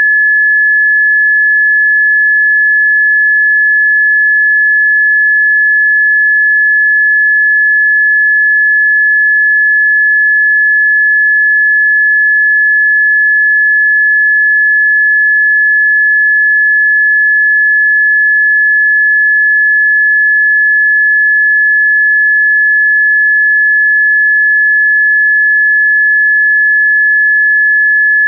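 A single electronically generated pure sine tone, a Rife frequency tone, held at one unchanging fairly high pitch. It is loud and steady, with no other sound.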